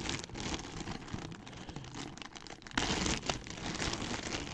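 Clear plastic bag crinkling and rustling as hands turn a jersey over inside it, with a louder stretch of crinkling about three seconds in.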